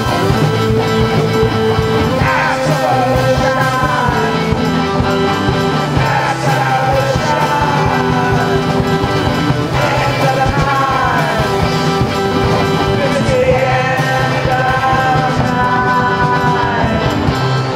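Recorded song by a punk/synth band: a steady drumbeat and bass under held keyboard chords, with gliding melodic lines on top.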